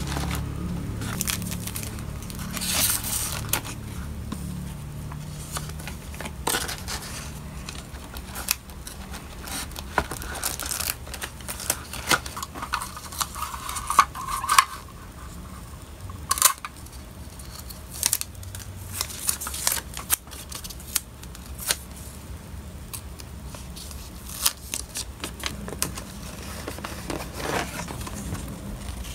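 Hands packing stationery into a cardboard mailer box: plastic-wrapped items crinkling, paper rustling and many small sharp clicks and taps as rolls of washi tape, pens and packets are set in and shifted, over a low steady hum.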